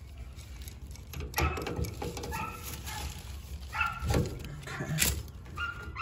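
Clicks and knocks of brass service-valve caps and a tool being handled at an air-conditioner condenser's valves. A few short, high-pitched animal calls sound in the background.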